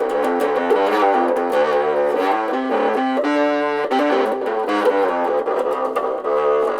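Electric bass played through a fuzz effect and a small practice amp: a loud, distorted riff of quickly changing notes.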